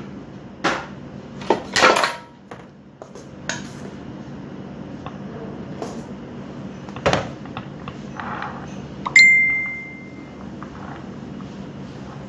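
A stainless steel mixing bowl and spatula clattering as cream frosting is scraped out onto a cake layer: several sharp knocks and scrapes, then about nine seconds in a single clear metallic ping that rings for about a second.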